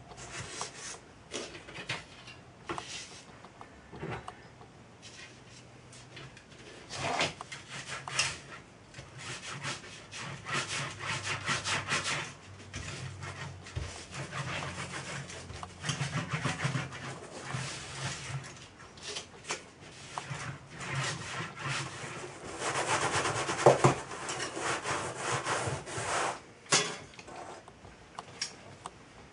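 A steel rod rolled back and forth by hand over a thin metal cladding sheet on a foam mat, bending the sheet into a curve: irregular stretches of rubbing and scraping, with a few sharp clicks and one louder knock about four-fifths of the way through.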